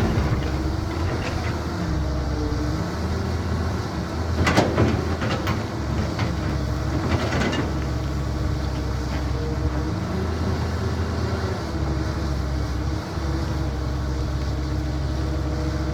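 CAT 320 hydraulic excavator running, its diesel engine drone rising and falling in pitch as the hydraulics take load. Two loud clattering bursts come about four and a half and seven seconds in.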